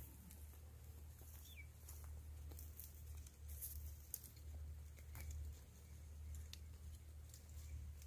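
Goats grazing close by: short crackles and clicks of grass being torn and brush rustling, over a low steady rumble, with a couple of faint chirps in the first few seconds.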